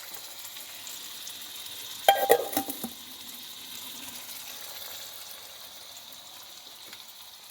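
Food sizzling steadily in a cooking pot, with a short burst of metal clinks and a brief ring about two seconds in.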